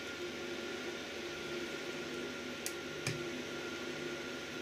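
Steady low mechanical hum with hiss, and two light clicks a little after halfway.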